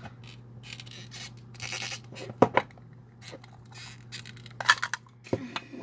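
Clear plastic display case being handled and pried open: scraping and rubbing of plastic with a few sharp clicks, the loudest about two and a half seconds in.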